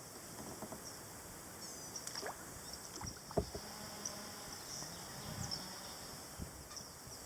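Kayak paddle strokes dipping in the water, with soft drips and splashes and a light knock about three and a half seconds in.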